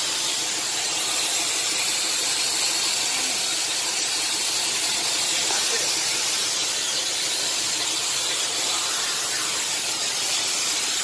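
A steady, even hiss that runs unchanged, with no clear beat or pitch.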